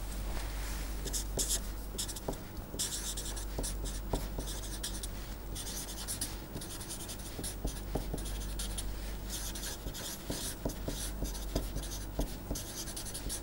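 Felt-tip marker writing on paper: irregular short scratching strokes as words are handwritten, with a few small taps, over a low steady hum.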